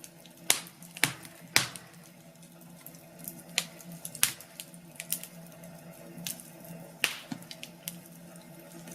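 Wood fire in a fireplace crackling: sharp, irregular pops and snaps, a few loud ones among many smaller ones, over a faint steady hum.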